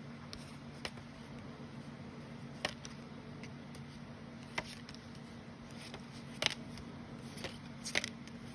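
Yu-Gi-Oh trading cards being handled and laid out, giving about six sharp, separate card clicks a second or two apart over a low steady hum.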